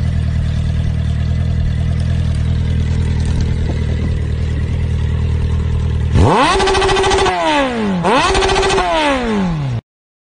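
Motorcycle engine sound effect idling steadily, then revving up twice from about six seconds in, each rev holding briefly before falling away. It cuts off suddenly near the end.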